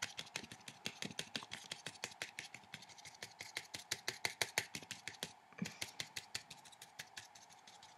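Brush tip tapping on watercolour paper: a quick run of light taps, several a second, as dots are stippled onto the painting. The taps thin out after about five seconds.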